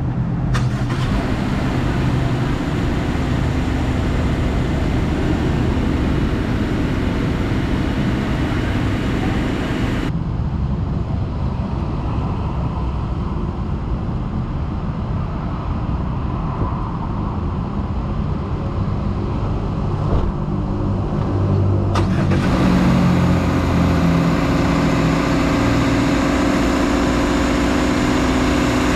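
Subaru Forester's 2.0-litre flat-four engine running steadily at idle, heard close up at the front grille. A rushing noise over the engine hum drops out suddenly about ten seconds in and returns suddenly about twelve seconds later.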